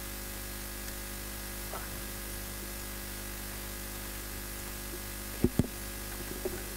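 Steady electrical mains hum with faint hiss, broken by two sharp knocks close together about five and a half seconds in.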